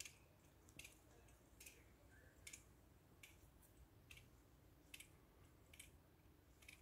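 Near silence, with faint, evenly spaced sharp clicks, about one every 0.8 seconds.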